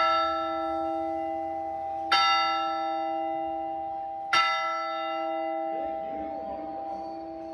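Petco Park's Mission Bell rung three times in the ceremonial signal that starts a ballgame. The first ring hangs on from a strike at the very start, and two more strikes follow about two seconds apart, each leaving a long, slowly fading ring with a steady low hum beneath.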